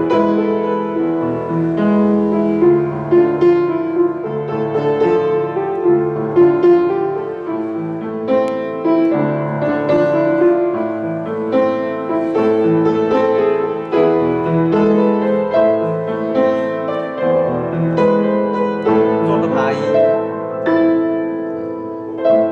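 Piano played with both hands: a single-note melody in the right hand over a fixed, repeating accompaniment pattern in the left.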